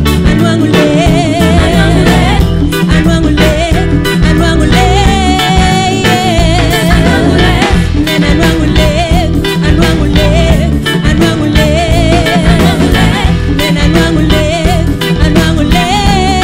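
Live band music: a woman sings a wavering melody over hand drums and a steady beat.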